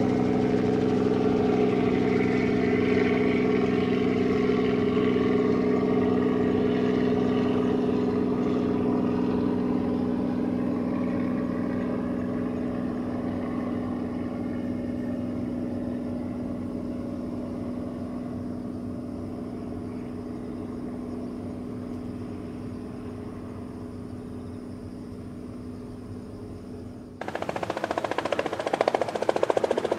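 Robinson R44 II helicopter in flight: the steady hum of its rotor and six-cylinder Lycoming piston engine, fading slowly as it flies away. Near the end the sound jumps abruptly to a louder, choppier rotor beat as the helicopter comes in close.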